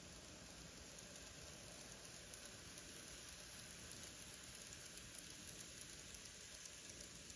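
Faint, steady rolling rattle of model railway hopper cars passing along the track. The level rises slightly as the sound begins.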